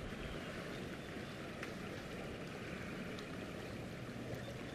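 Small stream flowing: a steady, even rush of water.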